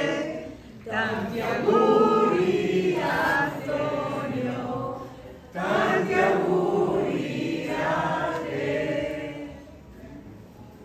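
A group of people singing together, many voices at once, a party song that breaks off about a second and a half before the end.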